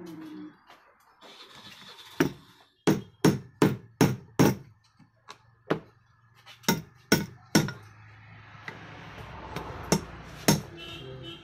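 Sharp metal knocks as a new oil seal is driven down into a motorcycle front fork tube. There are about a dozen strikes in uneven groups: a quick run of five at about three a second, then three more, then two near the end.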